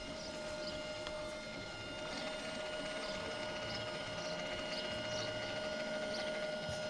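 Electric motor and gear drivetrain of a Trail Honcho RC rock crawler running at low crawling speed, a steady thin whine with slight grinding underneath.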